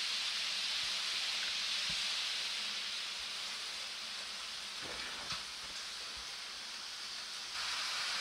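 Model train rolling slowly over the layout's track and points: a steady hiss with a few faint, irregular clicks of the wheels over rail joints. The hiss dips a little in the middle and picks up again near the end.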